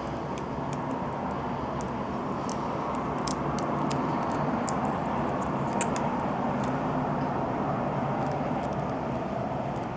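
Steady rushing background noise with scattered faint small clicks.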